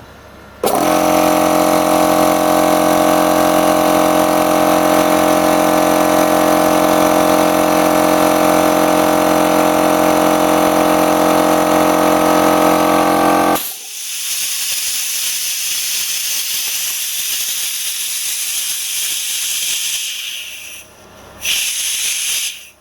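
Small piston air compressor running steadily, then cutting out abruptly at full pressure. Once it stops, air hisses out of the pressure switch for several seconds, with a short break and a second hiss near the end: the pressure switch leaks when it turns off, and the owner judges it faulty.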